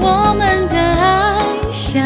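Live pop ballad: a woman sings a melodic line with vibrato over band accompaniment with guitar.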